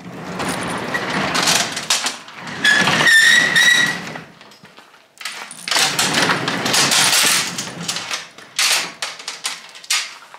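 Overhead sectional garage door being raised, rattling and rumbling as it runs up its tracks, with a brief squeal about three seconds in. After a short pause it rattles again as it is hauled on its hand chain, followed by a few sharp clicks.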